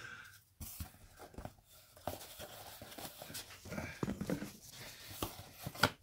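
Sports cards and their boxes being handled on a table: scattered soft rustles, taps and small clicks.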